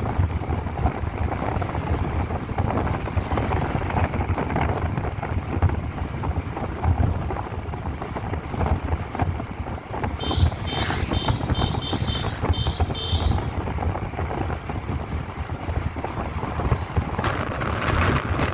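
Wind buffeting the microphone of a phone carried on a moving motorbike, with road and traffic noise beneath it. A run of short high-pitched beeps sounds for about three seconds midway.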